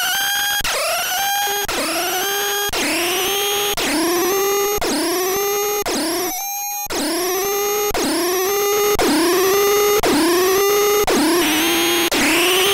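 Hand-built circuit-bent analog noise machine sounding a repeating electronic tone that swoops up in pitch and settles, a little under twice a second. Near the end a hissy, gritty layer joins it.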